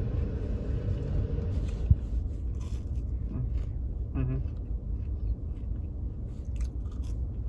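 A person chewing waffle fries over a steady low rumble inside a car cabin. There is a sharp click about two seconds in and a short hum from the voice around four seconds.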